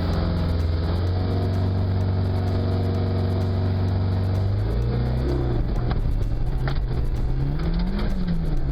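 Rally car engine running at a steady speed, then revved up and down about five seconds in and again near the end.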